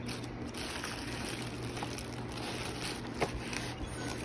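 Quiet handling of unboxed power-tool kit parts over a steady low hiss and hum, with one light click about three seconds in.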